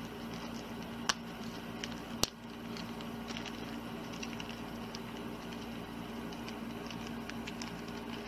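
Light ticks and small clicks from hands handling the small screws and parts of a robot-arm kit, with two sharper clicks about one and two seconds in, over a steady low hum.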